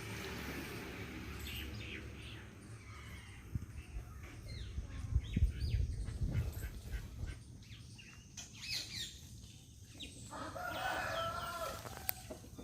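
Village birdsong: small birds give short high chirps, then a rooster crows once, about ten seconds in, with a call of about a second and a half. A low rumble comes midway.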